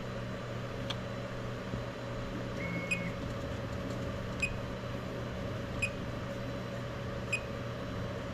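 Anycubic Kobra 3 3D printer powered on and idling, its fans giving a steady hum, with faint sharp ticks about every second and a half and a brief faint high beep about three seconds in.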